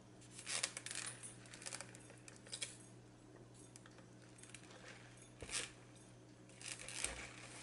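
Close-miked eating sounds: short clicks and crackles of chewing and food handling, coming in scattered clusters, the busiest about a second in and again near the end.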